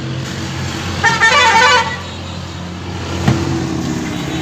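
A vehicle horn sounds once for just under a second, about a second in, over a steady low hum of passing traffic. A single click follows about two seconds later.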